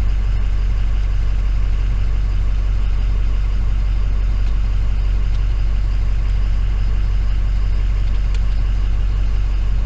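Steady low drone of an idling engine, unchanging throughout.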